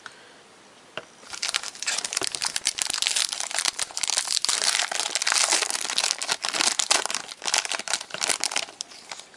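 Plastic trading-card pack wrapper crinkling continuously as it is handled and opened, after a quiet first second broken by a single click.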